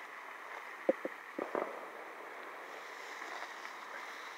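Quiet night-time outdoor ambience with a faint steady hiss, and four short soft knocks close together about a second in.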